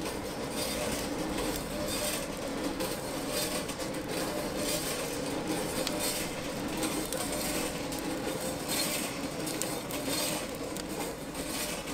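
Rotating drum chestnut roaster running: a steady mechanical hum with a rolling rattle of chestnuts tumbling inside, swelling and fading in uneven waves.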